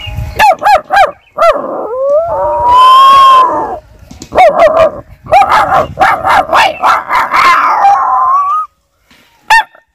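A man imitating a dog with his voice: short yelps, then one long howl that rises and falls about two to four seconds in, then a run of yelps and barks. It is meant as a dog howling alone to call its companions.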